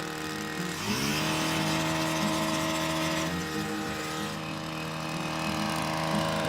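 STIHL KombiSystem power-head engine revving up from idle to full throttle about a second in, then running steadily at high speed.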